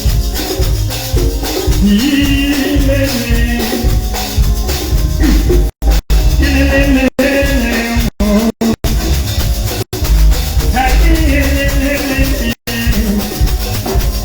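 Live band music played loud through a PA, with heavy bass, shaker and drum percussion, and a recurring melodic lead phrase. The sound cuts out completely for a split second several times in the second half.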